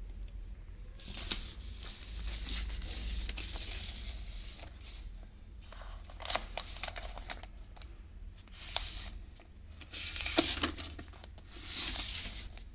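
Hands handling the iPad and its packaging. Rubbing and crinkling come in several bursts, with a few sharp clicks and taps about six to seven seconds in.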